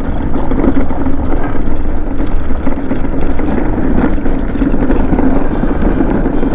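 Wind buffeting the microphone and a scooter running along the road: a loud, steady rumble.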